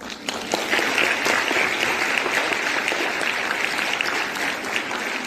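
Audience applauding, many hands clapping together; the applause breaks out at the start and keeps up steadily.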